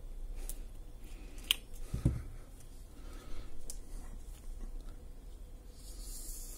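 Faint clicks and handling noise of hands working a short piece of black heat-shrink tubing with small pliers and picking up a walkie-talkie, with a dull thump about two seconds in.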